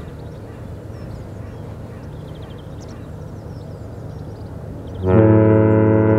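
A foghorn starts a long, loud, steady low blast about five seconds in, drowning everything else. Before it there is a low steady background rumble and faint bird calls.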